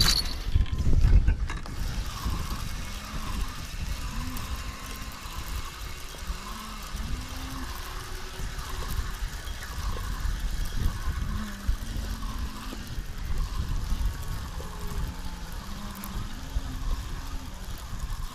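Fishing reel being cranked to wind in the line with a fish on, its whirring repeating in a steady rhythm, over a low rumble of wind on the microphone.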